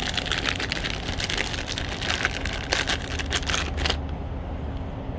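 Crinkling and crackling from handling the new bleeder valves, most likely in their plastic packaging: a quick, irregular run of crackles and clicks that stops about four seconds in, over a steady low hum.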